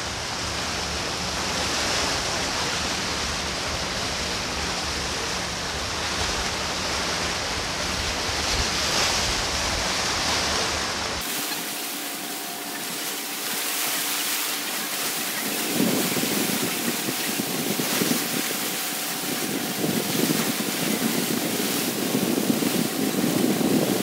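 Sea waves washing against shore rocks, with wind rumbling on the microphone. About eleven seconds in the sound changes abruptly: the low rumble drops away, a faint steady hum comes in, and the waves surge in a slow rhythm.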